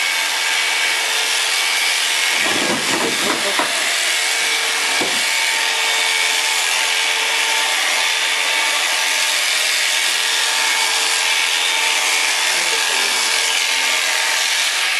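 Electric alpaca shearing handpiece running steadily with a constant buzzing whine while it clips the neck fleece. A short, louder, rougher patch comes about two and a half seconds in.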